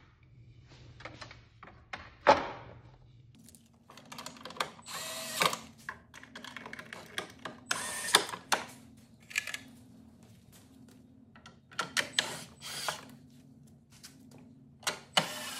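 Screws being driven by a hand screwdriver into the plastic side plates of a Minn Kota Powerdrive trolling-motor head, with scattered clicks, scrapes and rattles of the plastic parts being handled. A steady low hum comes in about three seconds in.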